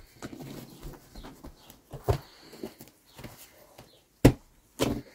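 Hands patting and pressing rounds of bread dough flat on a cloth-covered table, with soft rustling and a few short sharp slaps or knocks, the loudest about four seconds in.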